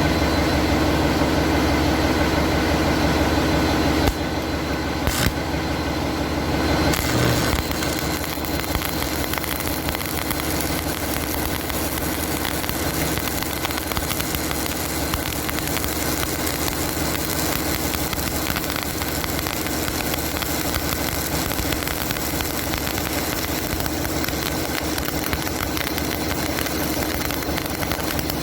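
Arc welding along a horizontal joint: a steady crackling arc over a low hum from the welding machine. The level drops a little about four seconds in.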